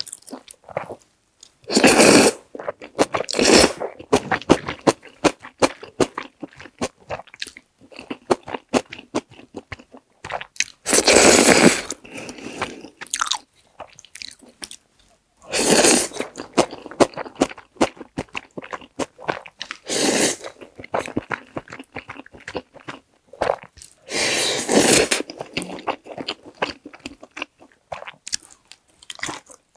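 Close-miked eating of black-bean-sauce instant noodles, aged kimchi and sausage: steady wet chewing and crunching, with about six louder bursts lasting around a second each.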